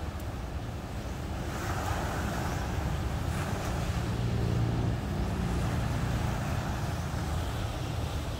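Ocean surf washing on a sandy beach, with wind rumbling on the microphone. A low engine hum grows louder through the middle and eases off again.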